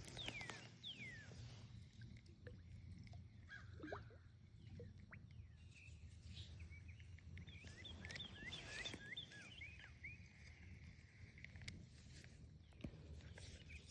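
Faint outdoor ambience with scattered bird chirps and whistles, including a quick run of chirps about eight to nine seconds in.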